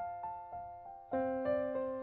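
Background music: a piano playing a gentle run of single notes, each struck and fading, with a fuller chord and a low bass note coming in about a second in.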